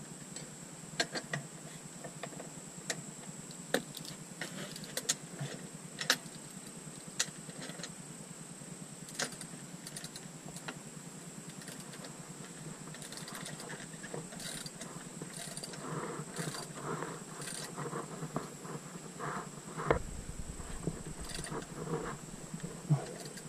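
Wrench and metal parts clinking and clicking at irregular intervals as a dirt bike's rear axle nut is tightened by hand.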